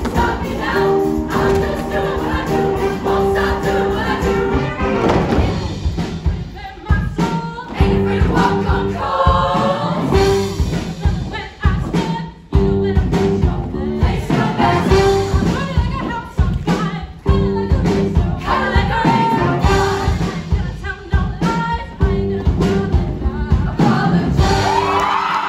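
Show choir singing with a live band, many voices over a steady drum beat; partway through a solo singer takes the lead over the band.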